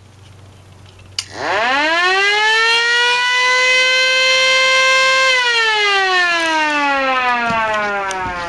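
Tornado-warning siren sounded for a test: a click about a second in, then its tone climbs quickly in pitch, holds steady for a few seconds, and slides slowly down as it winds down.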